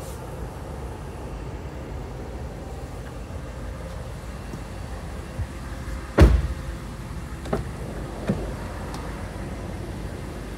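Steady low rumble, with a sharp, loud thump about six seconds in that rings briefly, then two lighter knocks a second or two later.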